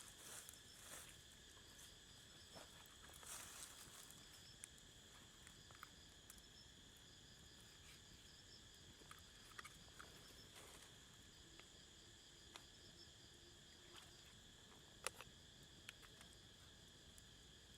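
Faint, steady insect chirring in a forest, several high tones held throughout with a faster pulsing one above them, and scattered small clicks and knocks, the sharpest about fifteen seconds in.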